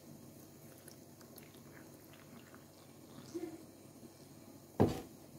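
Milk pouring softly into a glass blender jar of fruit and yogurt, with faint small ticks. A single sharp knock comes near the end.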